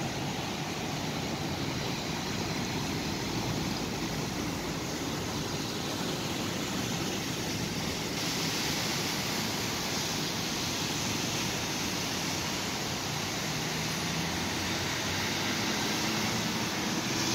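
Steady rushing hiss of heavy rain and of traffic driving through floodwater on a flooded road, tyres throwing up spray.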